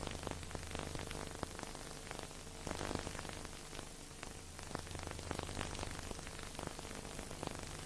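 Steady hiss with irregular crackles and clicks over a low hum, and no music. This is the background noise of an old transfer of a silent film that has no soundtrack.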